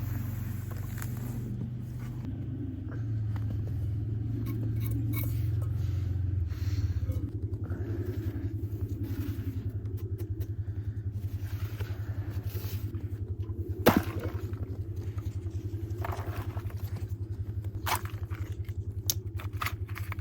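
Engine running steadily; about seven seconds in its note drops to a fast, even pulsing, with a few sharp knocks near the end.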